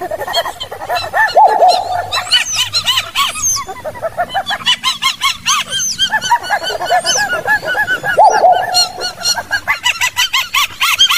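Black-winged stilts calling: a loud, dense run of rapid, sharp yelping calls, several a second and overlapping, with brief lulls.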